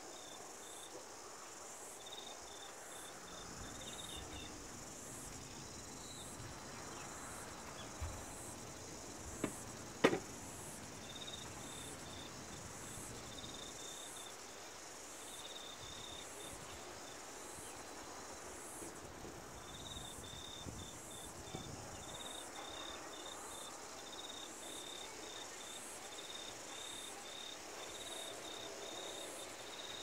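Insects chirping in repeated short, high-pitched pulse trains over a faint steady background hiss. A few sharp taps stand out between about eight and ten seconds in, the loudest near ten seconds.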